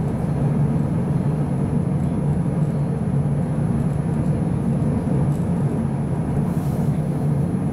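Steady running rumble inside a moving tram: wheels on the rails and the drive, heard from the passenger saloon.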